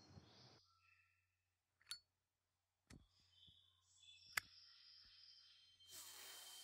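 Faint clicks of a lighter being struck while lighting a cigarette, a few spaced about a second apart, the loudest a little after four seconds in. Near the end comes a breathy exhale.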